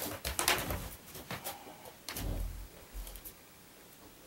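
Rustling and soft bumps of people shifting about on a bed: short scraping noises through the first second and a dull thump about two seconds in.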